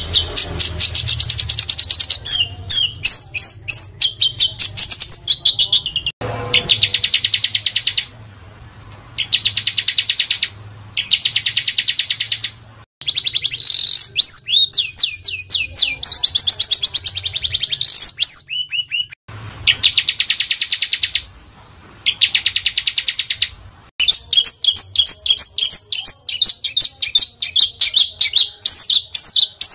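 Small songbird singing dense, harsh song: fast trills and buzzing rattles in blocks of a second or two, mixed with quick sweeping notes, broken by short pauses. A faint low hum lies underneath.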